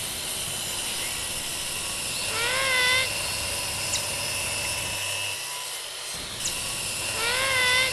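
Steady whirring of a small electric motor in a home-built model tractor, with a fixed high whine. Two short wavering tones come about two seconds in and again near the end.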